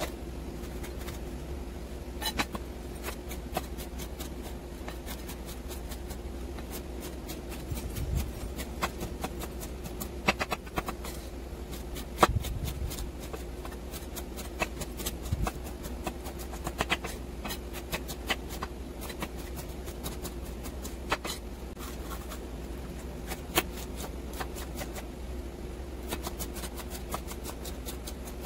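Chef's knife chopping bell peppers on a wooden cutting board: irregular sharp taps of the blade striking the board, coming in quick runs as the pepper is diced, over a steady low hum.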